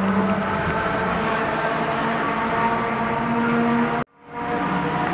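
Steady engine drone with several held tones. It drops out abruptly for a moment about four seconds in, then resumes.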